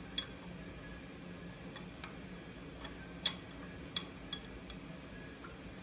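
A handful of light, sharp metallic clicks and taps, spaced irregularly, from a hand tool and valve-train parts being handled on a Cummins 6.7L diesel cylinder head.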